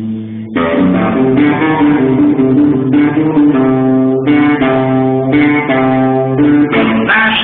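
Electric guitar playing a blues riff of single notes and chords between sung verses, with a brief break about half a second in.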